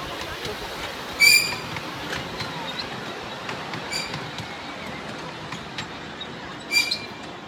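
Ride-on miniature park railway train rolling along its narrow-gauge track, with a steady rumble of wheels on rail. Three short, high-pitched squeals stand out: about a second in, about four seconds in and near the end.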